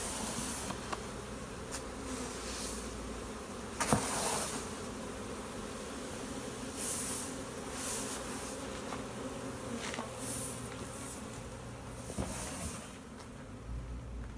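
A large swarm of honeybees buzzing steadily. A sharp knock comes about four seconds in, and a few brief rustles later on.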